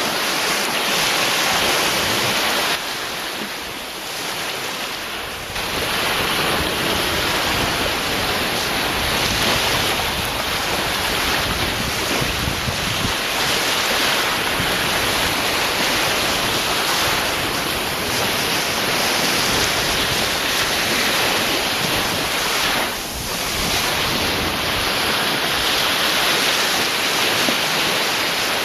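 Sea surf: a continuous rush of waves breaking and washing, with wind mixed in. It eases off for a couple of seconds a few seconds in and dips briefly again about three-quarters of the way through.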